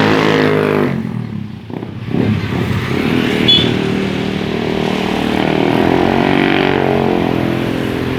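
Buses passing close by with their engines running. One engine fades away about a second in, then another builds up and runs on.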